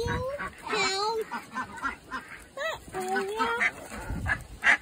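Ducks quacking in short, repeated calls, mixed with a young child's wordless voice.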